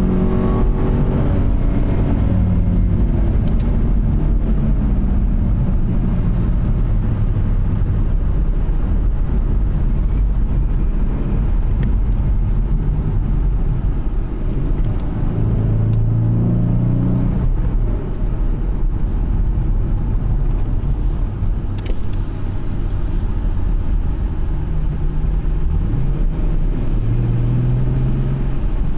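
2013 Ford Mustang's 3.7-litre V6 engine heard from inside the cabin, running under light throttle over steady tyre and road rumble. The engine note falls away in the first couple of seconds, then swells again for a few seconds about halfway through and once more near the end.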